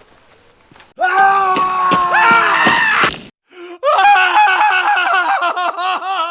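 A loud, drawn-out wailing cry starting about a second in. It breaks off for a moment, then resumes with a wavering, shaking pitch.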